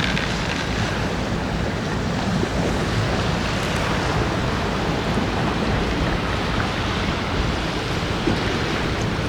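Strong wind blowing and buffeting the microphone, a steady rushing noise heaviest in the lows.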